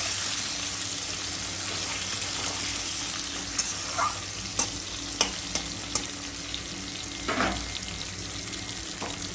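Potato chunks with sliced onion and whole spices sizzling steadily as they fry in oil in a kadai. A metal spatula clicks against the pan several times in the middle, with one longer scrape near the end.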